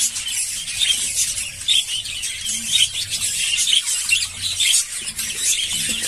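A colony of small parrots, budgerigars and lovebirds, chattering together: a dense, continuous high twittering of many overlapping chirps.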